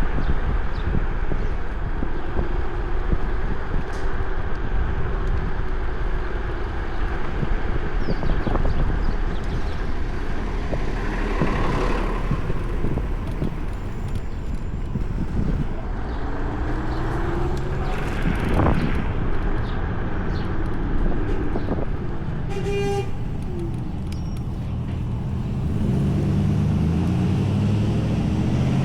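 Riding an electric scooter through street traffic: a steady rush of wind and road noise with cars passing. A short horn-like beep sounds about two-thirds of the way through, and a heavier vehicle engine goes by near the end.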